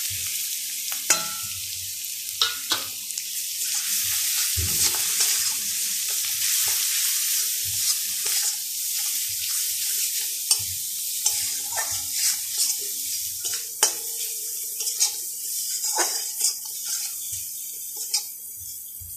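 Onion paste with turmeric, chilli powder and salt sizzling in oil in a stainless steel kadai. A steel spatula scrapes and clicks against the pan as it is stirred. The sizzle softens towards the end.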